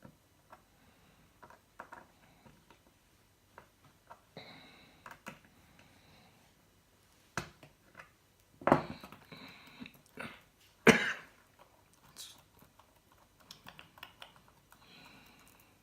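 Irregular small clicks and taps from handling the metal links of a Leatherman Tread bracelet while they are taken apart. A few louder knocks stand out, the loudest about eleven seconds in.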